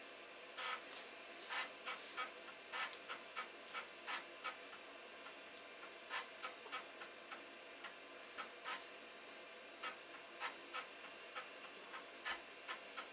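Commodore Amiga disk drive heads clicking irregularly, about two clicks a second, over a faint steady hiss, as the computer reboots.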